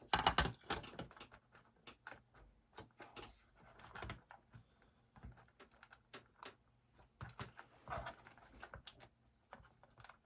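Small clicks, taps and scrapes of plastic and metal laptop parts being handled as the new SSD is fitted back into the laptop toward its motherboard connector, with a dense burst of clicks in the first second and another cluster near the end.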